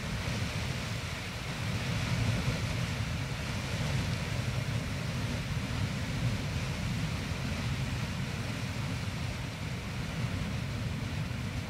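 Castle Geyser in its steam phase: steam jetting steadily from the cone, a constant rushing noise with a deep rumble underneath.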